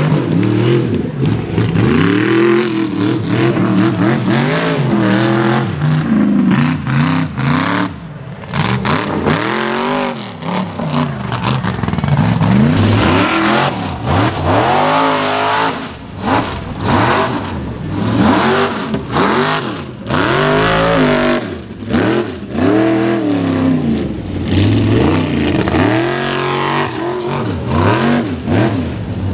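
Mega truck engines revved hard again and again, the pitch swooping up and down in quick runs under heavy throttle, with a few brief lulls between bursts.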